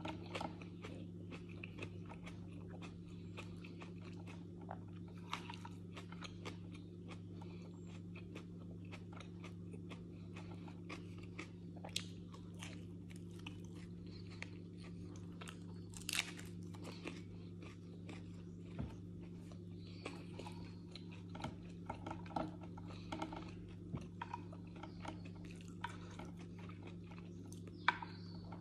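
Close-up chewing and biting of a person eating flatbread by hand, with scattered crunchy clicks and crackles and a few sharper snaps. A steady low hum runs underneath.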